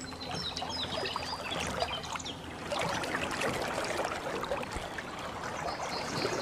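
Water trickling and running like a small stream, with birds chirping in short calls throughout.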